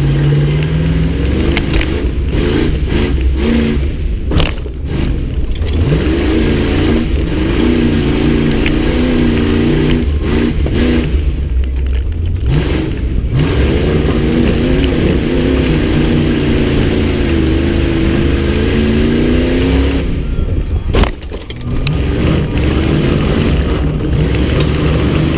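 A race Jeep's engine revving hard and dropping off again and again, heard from inside the gutted cab, with knocks and clattering as it bounces over the dirt course, and one sharp bang near the end.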